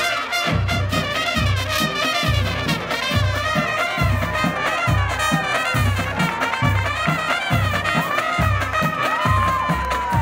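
Full college marching band playing: brass and saxophones carry the tune over a steady bass-drum beat of about two hits a second, with a held high note that bends up and then falls away near the end.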